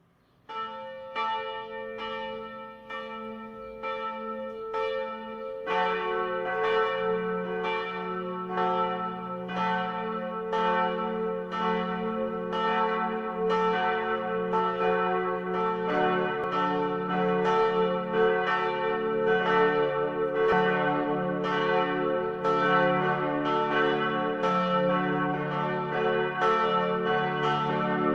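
Church bells ringing in a steady run of strokes, about three every two seconds, each one ringing on into the next. About six seconds in a deeper bell joins and the peal grows fuller and louder.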